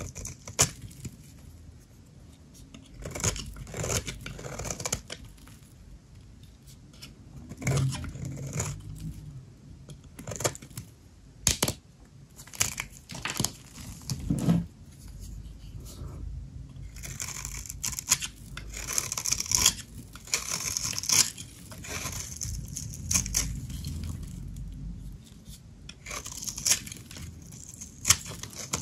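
Dry soap being cut and crushed: a string of irregular crisp cracks and crunches, with scratchy rasping passages about two-thirds of the way through.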